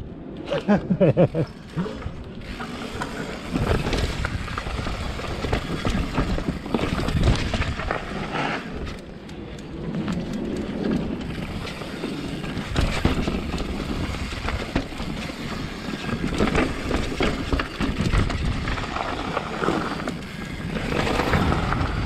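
Mountain bike riding fast down a rocky dirt trail: steady tyre rumble on dirt and rock, with frequent knocks and rattles from the bike as it hits rocks and roots.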